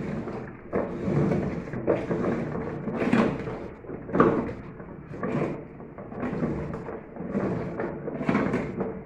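Agitator puller being screwed down on a washing machine's agitator shaft: uneven creaking and scraping strokes, about one a second, as the tool is forced against the stuck agitator.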